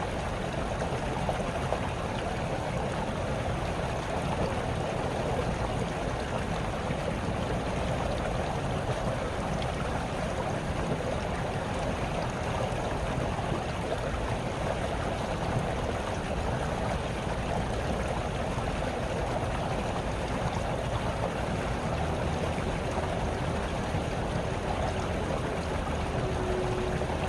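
Small brook trickling and babbling steadily, an even flow of running water.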